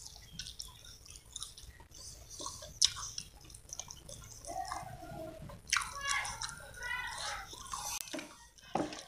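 Close-miked eating of bakso meatball soup: irregular chewing with wet clicks, and the slurping of broth.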